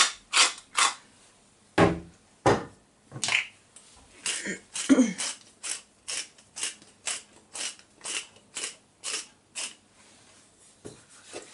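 Salt and pepper mills twisted by hand over a pan, grinding in short rasping strokes about two a second, with a few brief pauses between runs.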